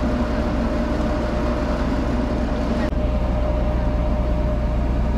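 Turboprop airliner engines running: a steady drone with a constant mid-pitched tone over a low rumble.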